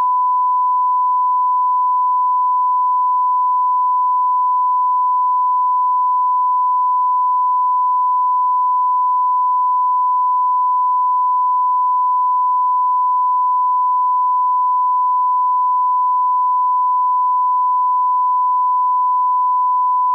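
Broadcast line-up reference tone, a steady unbroken 1 kHz sine tone played with colour bars at the head of a programme tape.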